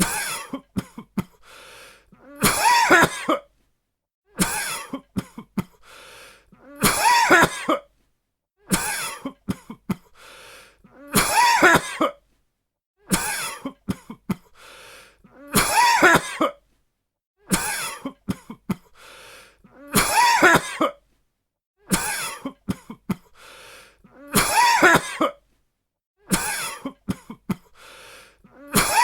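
A person coughing in repeated fits: a few short coughs, then one longer, louder cough, with the same fit coming round about every four and a half seconds.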